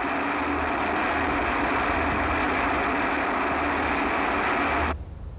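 Liquid-propellant rocket motor firing steadily on a test stand, a continuous rushing roar that stops abruptly about five seconds in.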